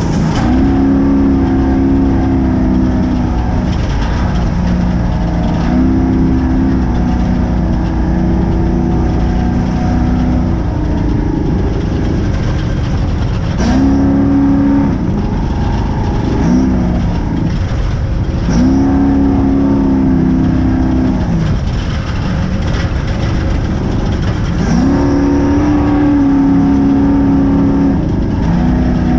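Spec Trophy Truck's engine heard from on board at race pace, its pitch climbing and holding, then falling away every few seconds as the throttle is lifted and reapplied. Underneath runs a constant rough rumble with occasional knocks from the truck running over desert dirt.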